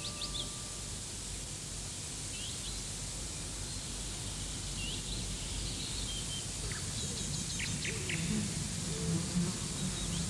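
Birds chirping here and there over a steady background hiss, with a quick run of calls about seven seconds in. A last note of background music dies away at the very start.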